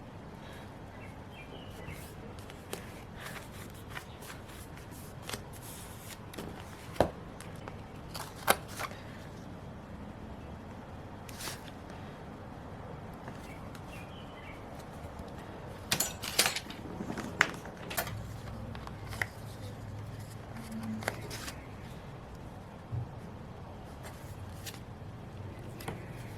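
Hands decorating a paper planner page: scattered taps, clicks and rustles of paper, stickers and washi tape being handled on a desk, with a run of sharper clicks a little past the middle.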